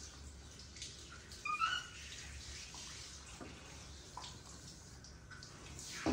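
Pet monkey giving a short, high squeaky call about a second and a half in, over a low steady hum; a sharp knock comes near the end.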